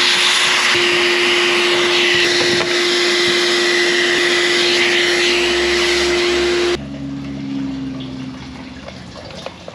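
Shop vacuum running with its hose nozzle sucking dirt off the top of a fuel tank around the sending unit. It is switched off about seven seconds in and the motor winds down.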